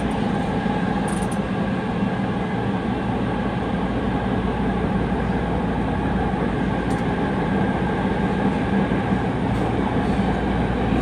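Subway train running through a tunnel, heard from inside the car: a steady rumble of wheels on rail with a faint even hum.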